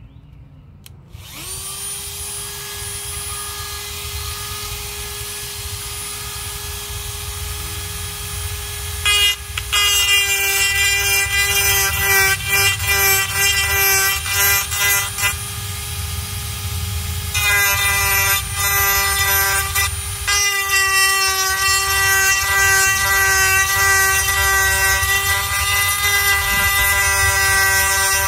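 Dremel rotary tool on a flexible shaft, switched on about a second in and running with a steady high whine. From about nine seconds in, its burr grinds into the dried gourd shell, and the sound grows louder and rougher, with a few short dips.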